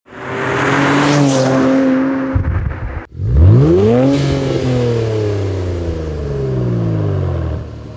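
Exhaust of a 2016 Infiniti Q50 Red Sport's 3.0-litre twin-turbo V6, fitted with a cat-back system with a non-resonated X-pipe and 10-inch sport mufflers. It runs at a steady high rev for about two seconds, then after a short break it revs up sharply, and the pitch falls slowly for the next three seconds or so.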